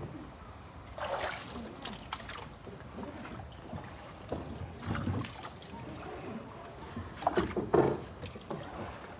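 Water splashing and sloshing from paddle strokes around a small wooden longboat, with irregular knocks on the hull as people move about in it.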